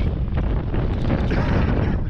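Wind buffeting the microphone, with heavy mittens and winter clothing rustling close against it.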